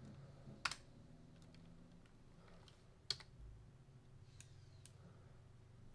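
A few sharp, separate clicks of a computer mouse and keyboard, the loudest about three seconds in, over a faint steady low hum.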